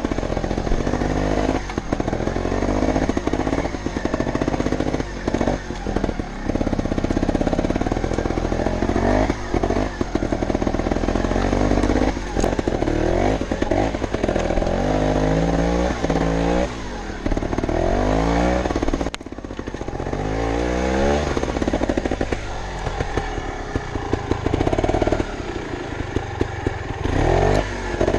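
Montesa Cota 315R trials motorcycle's two-stroke single-cylinder engine under way, its revs rising and falling over and over as the throttle is opened and shut.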